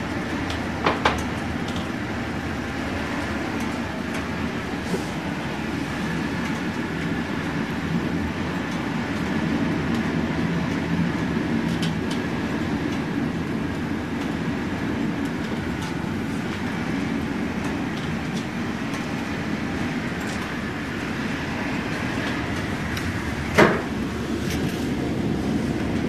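Blizzard wind blowing in a steady, rumbling rush against a building, heard from indoors. A sharp knock sounds about a second in and a louder one near the end.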